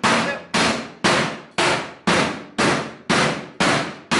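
A hand hammer repeatedly striking a steel safe: sharp metallic bangs, about two a second, each ringing briefly before the next.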